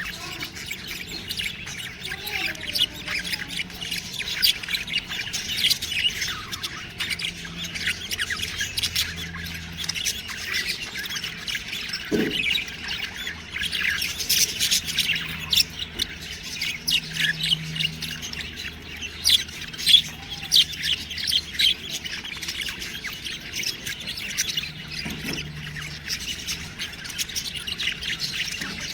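A flock of budgerigars chirping and squawking: a dense, continuous chatter of many overlapping calls.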